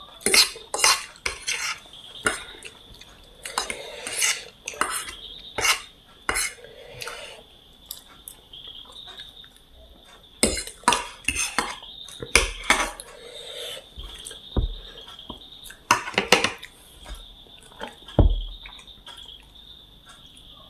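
Cutlery clinking and scraping against a plate while chaumin noodles are eaten, in irregular sharp clicks with short pauses between them.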